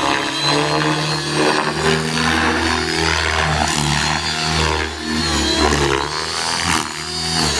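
Align T-Rex 600E electric RC helicopter flying aerobatics: the main rotor's buzzing chop rises and falls in pitch and loudness as it manoeuvres, with a thin high whine from the electric motor and drive gears on top.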